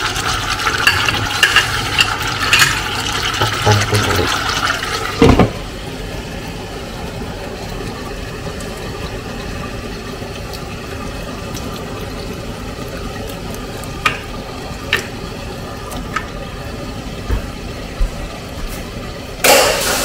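Metal ladle stirring and scraping through pork adobo simmering in its sauce in a pan, with bubbling and many small clicks. About five seconds in a glass lid knocks down onto the pan, and after it the covered pan simmers with a steady, quieter noise broken by a few small ticks and one louder knock near the end.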